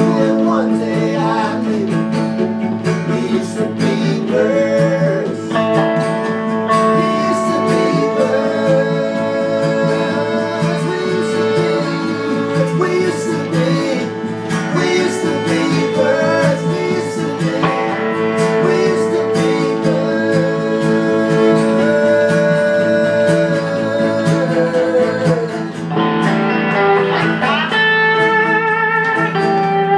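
Instrumental break of an acoustic folk song: guitar accompaniment under a lead melody line that slides between notes, with wavering higher notes near the end.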